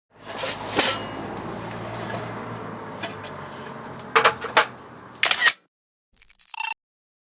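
Camera shutter click sound effect near the end, after several seconds of low hum broken by a few sharp clicks and knocks, which cut off suddenly.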